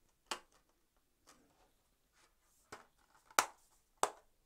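A handful of short, sharp clicks and taps from a metal steelbook disc case being handled and shut, the loudest about three and a half seconds in.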